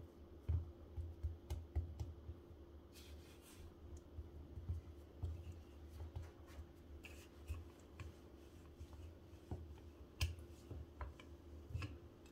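A ball of chapati dough being patted and pressed flat by hand on a floured granite countertop: soft, irregular taps and dull thumps with a few light clicks.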